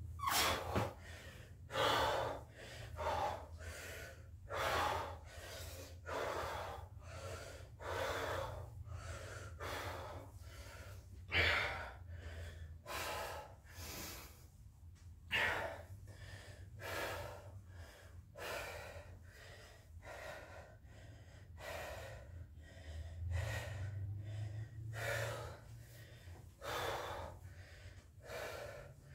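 A man breathing hard after burpees: loud gasping breaths about every second and a half, heaviest in the first few seconds, over a steady low hum.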